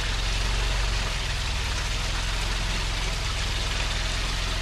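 Rock crawler's engine idling steadily under a constant hiss, while the truck waits on the ledge.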